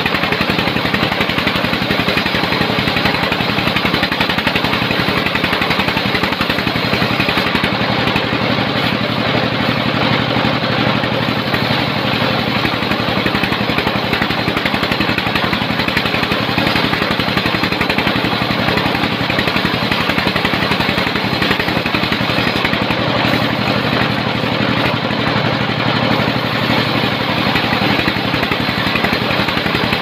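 A sawmill's engine running steadily, with a fast, even rattle that holds the same pace.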